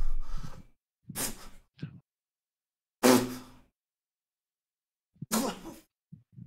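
A man sighing heavily three times, short breathy exhales with a slight groan in them, about two seconds apart: sighs of exasperation.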